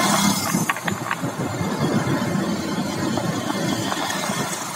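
Vehicle engine running with road noise while riding in traffic, with a few brief high squeaks about a second in.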